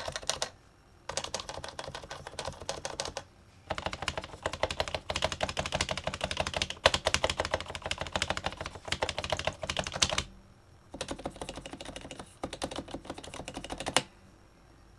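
Typing on an HHKB Professional Classic keyboard with stock Topre capacitive switches: fast runs of keystrokes in bursts, with a few short pauses. The typing stops about a second before the end.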